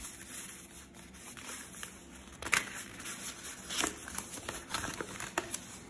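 Cardboard and paper packaging handled by hand: a folded card sleeve rustling and scraping as a paper leaflet is slid out, with scattered sharp snaps and taps. The loudest snap comes about two and a half seconds in.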